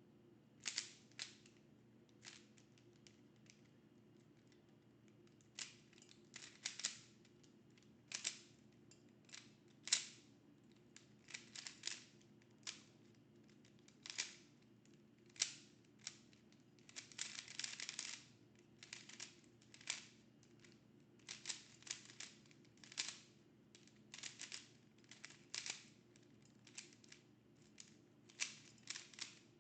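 Rubik's cube being turned fast during a speed solve: irregular clusters of short, sharp plastic clicks and clacks, with a longer run of rapid turning about seventeen seconds in.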